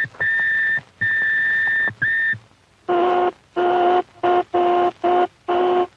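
Sound-laboratory test tones. A high, steady whine comes in several separate blasts of about half a second to a second, then after a short pause a lower, buzzier tone sounds in a run of short bursts of uneven length.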